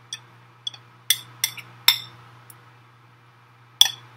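A utensil clinking and knocking against a glass mixing bowl as cookie batter is scraped and stirred. There are about six short, ringing clinks at uneven intervals, most in the first two seconds and one near the end.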